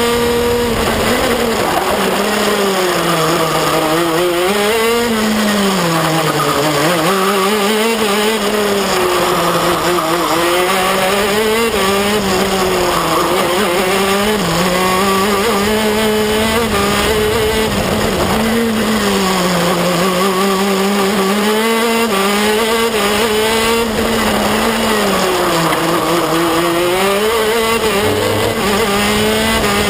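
On-board sound of a KZ2 shifter kart's 125 cc two-stroke engine, its revs climbing and dropping again and again as the kart goes round the circuit.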